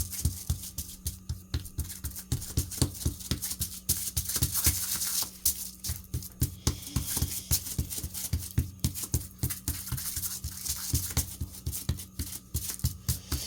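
Wet hands patting and slapping a ball of corn masa dough made from harina P.A.N., flattening it into a disc, in a rapid run of short pats of several a second.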